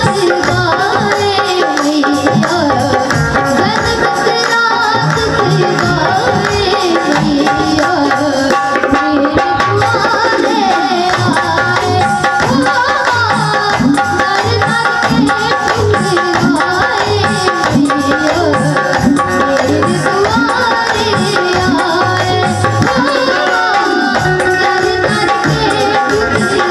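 Bundelkhandi devotional folk song, a vandana to Saraswati: a voice singing over a steady hand-drum rhythm with other instruments.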